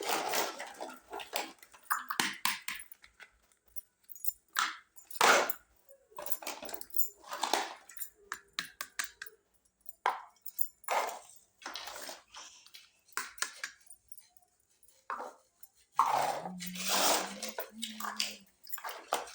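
Irregular clicks, taps and rustles of small plastic pieces of a miniature Hello Kitty toy kitchen set being handled and set up, in short separate bursts with brief pauses between.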